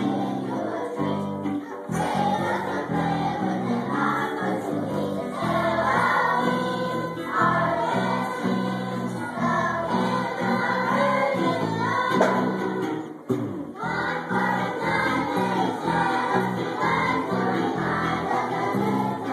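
Children's choir singing a song together, accompanied by a student string orchestra of violins. The music breaks off briefly about two-thirds of the way through, then goes on.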